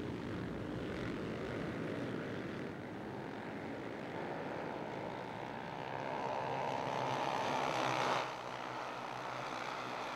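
A pack of Honda CB 300R racing motorcycles, with single-cylinder four-stroke engines, running together at high revs. From about five seconds in, one engine note rises in pitch and grows louder, then cuts off abruptly about eight seconds in.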